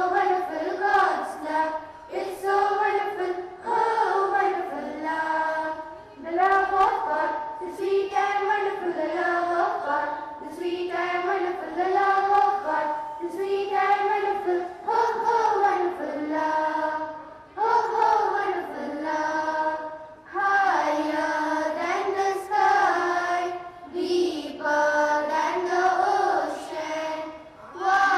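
A large group of schoolchildren singing a song together in unison, in sung phrases with short breaths between them.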